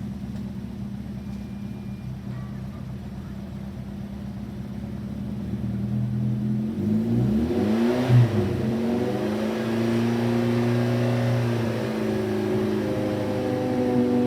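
Honda S800's small four-cylinder DOHC engine running steadily at low revs, then revved up and back down about seven seconds in with a brief thump, then held at a higher, steady speed, its pitch creeping up near the end.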